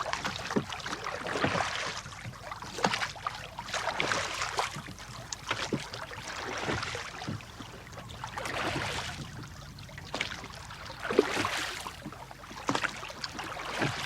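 Oars dipping and pulling through water as a rowboat is rowed, with a splashing stroke every second or two and small knocks between strokes.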